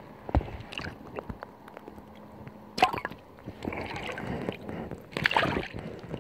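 Lake water sloshing and gurgling right at the microphone as the camera is dipped under the surface and lifted out, with drips and several sudden splashes.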